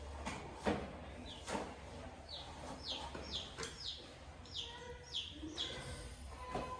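A small bird chirping over and over, short falling chirps about twice a second that stop shortly before the end. A few sharp clicks sound among them, the loudest near the start.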